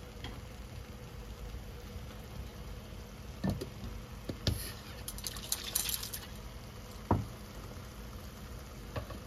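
Thick masala paste cooking in a nonstick kadai, bubbling and spitting: a few sharp pops about a third of the way in and again near the end, with a short spell of hissing spatter around the middle, over a steady low hum.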